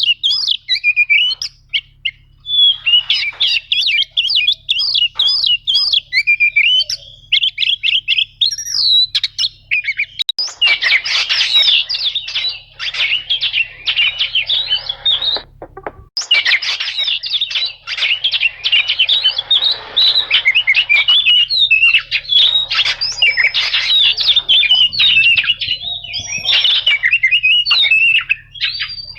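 Oriental magpie-robin (kacer) singing a fast, unbroken stream of chattering notes and rolling trills. The song stops abruptly twice for a moment, about ten and sixteen seconds in.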